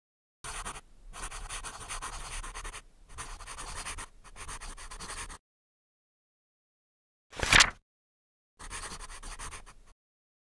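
Pen scratching across paper in several runs of strokes. A single sharp, loud rustle of a paper page being flipped comes about halfway through, and then more pen scratching follows.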